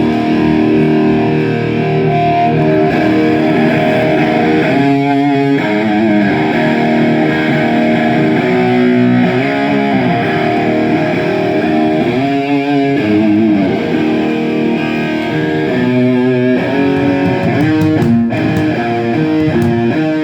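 Distorted electric guitar played for a sound check of the stage-left guitar. It plays sustained chords and riffs, with wavering vibrato notes several times.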